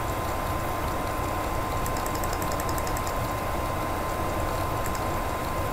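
Steady background noise with no speech: a low rumble and hiss with a faint, steady high whine.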